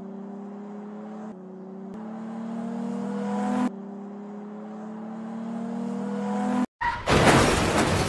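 A car engine accelerating hard through the gears: its pitch climbs steadily, then drops back twice at each upshift, about a second in and again past three and a half seconds. Near the end it cuts out briefly and a loud burst of harsh noise follows.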